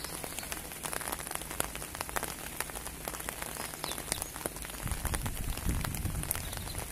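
Rain pattering in many small drops over the steady rush of the River Wye in full flood, with a low rumbling about five seconds in.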